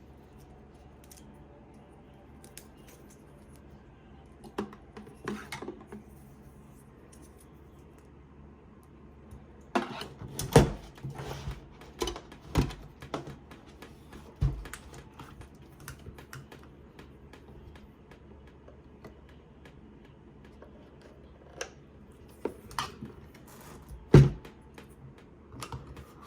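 Scattered clicks, taps and knocks of desktop PC hardware being handled while an SSD is installed. They come in clusters, with a louder knock about ten seconds in and another near the end.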